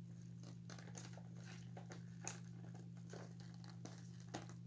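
Faint, scattered clicks and taps of plastic parts being handled as an animatronic toy figure's head is fitted back on, the sharpest a little after two seconds, over a steady low hum.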